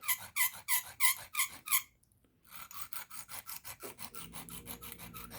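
Carbon-steel pocket-knife blade stroked over a coarse sharpening stone, a rasping stroke about three times a second, then after a brief break lighter, quicker strokes. The edge is being ground on one side to raise a burr.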